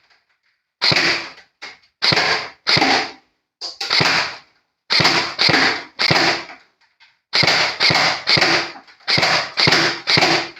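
Classic Army Nemesis double-barrel M4 electric airsoft rifle firing single shots at a box, about a dozen sharp pops at an uneven pace, roughly one to two a second.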